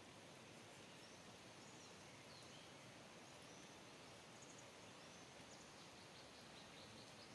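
Near silence: faint outdoor ambience with a few faint, high bird chirps.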